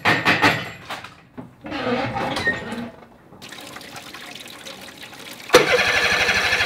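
A few knocks, then water splashing from a Honda four-stroke outboard's lower unit into a plastic tray. About five and a half seconds in, the 30 hp outboard starts from cold with a sudden loud burst and runs steadily.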